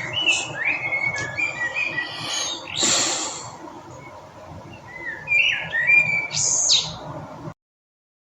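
Small songbirds chirping and singing in short, rising and falling phrases over a steady background hiss, with a brief loud rush of noise about three seconds in. The sound stops suddenly near the end.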